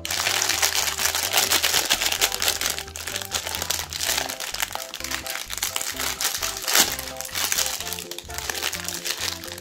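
Plastic Magnum ice cream wrapper crinkling loudly as hands handle it and pull it open, with one sharp crackle about seven seconds in. Background music with a simple melody plays underneath.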